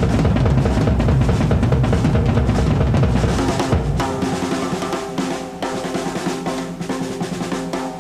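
Drum kit with two bass drums in a fast live solo: dense rolls over snare and toms with deep bass-drum beats underneath. About halfway the bass-drum beats drop out, leaving rapid tom rolls that ring at steady pitches, and the deep beats come back near the end.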